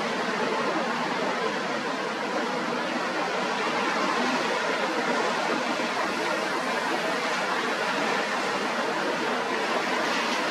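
Steady rushing noise of strong wind and sea, with no engine note or other distinct sound standing out.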